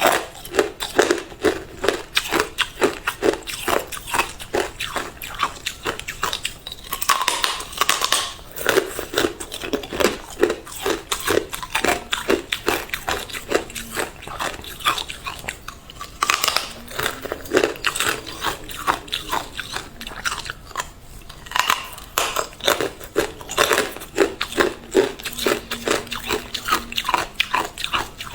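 Hard clear ice being bitten and chewed close up: rapid, crisp crunching and cracking, several crunches a second, coming in runs with brief pauses.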